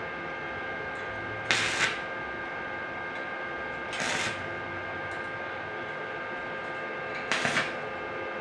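Stick welding on a stainless steel tube handrail: three short tack welds, each a brief burst of arc noise under half a second long, about a second and a half, four seconds and seven seconds in, over a steady hum.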